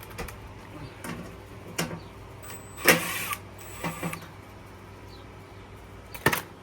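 Handling sounds of tools and sheet-metal parts on an HVAC blower assembly while its ground wire is disconnected: a few sharp clicks and knocks, with a louder half-second rasp about three seconds in and another sharp knock near the end.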